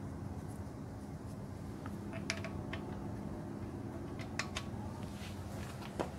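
A few light metallic clicks and taps as a balance shaft sprocket and its bolt are handled and fitted onto the front of an engine block, over a steady low hum.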